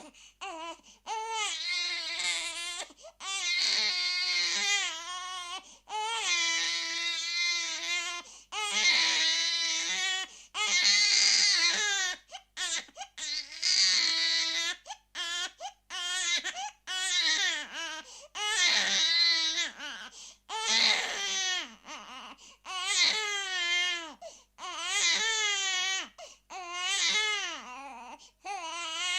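Infant screaming and crying: a string of loud, high-pitched wails, each a second or two long with short gasps for breath between them, the pitch wavering within each cry.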